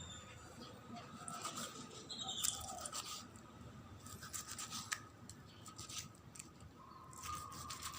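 Knife slicing cooked beef shank on a cutting board: irregular short cutting and scraping strokes, faint.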